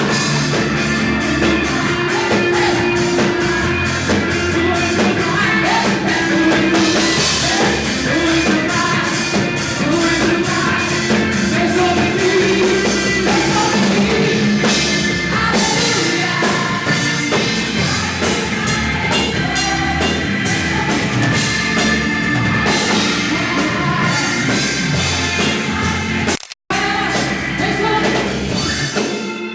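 Worship band playing upbeat rock-style praise music with drum kit and guitar, with singing over it. The sound cuts out for a moment near the end.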